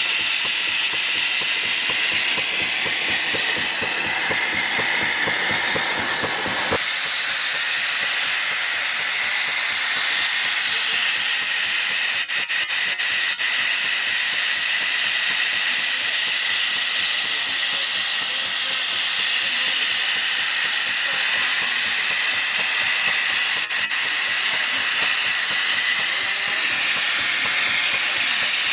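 Stationary steam engine running under steam, with a steady, loud hiss of escaping steam.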